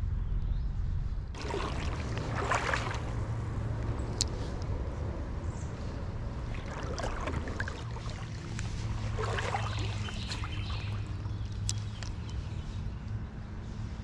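Creek water trickling and gurgling, with a steady low rumble and a few louder swishes of water.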